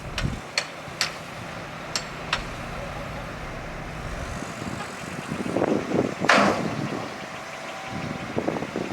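Heavy earthmoving machinery at work: a few sharp knocks early on, then a rumble with a dense, irregular clatter of clanks that builds from about five seconds in, the loudest about six seconds in.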